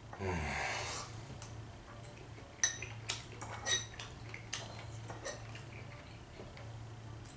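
A metal fork clinking and scraping against a plate and a small bowl during a meal, in a series of sharp clinks from about two and a half seconds in. It opens with a louder, breathy sound about a second long whose pitch drops.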